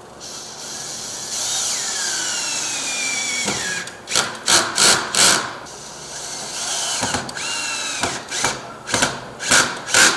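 Power drill-driver driving screws into the storm door frame. There are two longer runs whose whine drops in pitch as the screw bites, each followed by several short trigger bursts.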